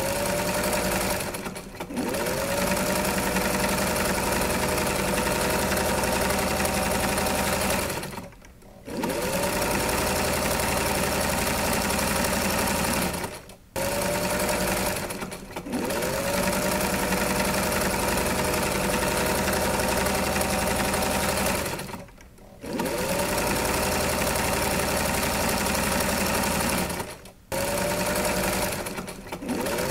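Electric sewing machine running in long stretches. It stops or slows briefly several times and spins back up after each pause.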